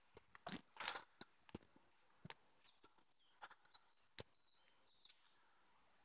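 Footsteps crunching on dry fallen leaves and twigs, in a quick run of steps early on that thins out to scattered crunches. Faint bird chirps come through in the middle.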